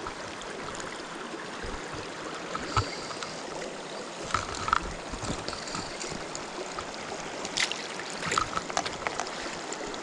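Shallow mountain stream running over rocks, a steady rush of water, with a few short clicks and knocks scattered through the middle and near the end.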